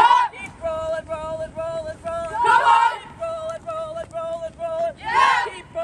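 A group of drill cadets chanting a rhythmic cadence in unison, short notes on one pitch about three to four a second. Three loud shouts rise above the chant, about two and a half seconds apart.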